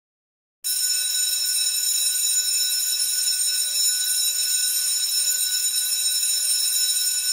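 A steady, high-pitched electronic tone over a hiss, with several fixed shrill pitches held without change. It starts abruptly about half a second in and cuts off suddenly at the end.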